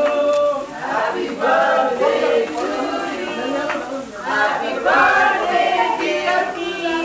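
A group of men and women singing a birthday song together, with hand-clapping.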